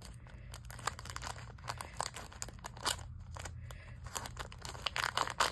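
Plastic poly mailer bag crinkling and crackling as hands pull and work at its taped seal to get it open, with a louder cluster of crackles near the end.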